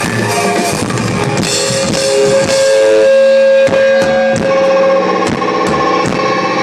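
Live rock band playing loud: drum kit and guitar, with a long held note in the middle and regular drum hits through the second half.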